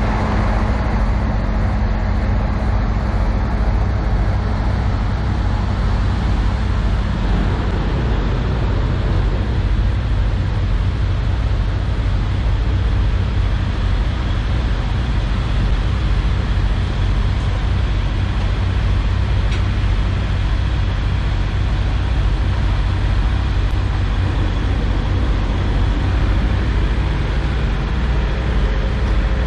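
Steady low drone of idling diesel engines among parked semi trucks, with a higher hum that drops out about seven seconds in.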